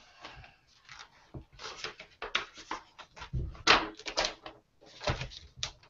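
Quick, scratchy pen strokes on sketchbook paper during fast gesture drawing: a run of short irregular scrapes, with a couple of heavier knocks against the desk among them.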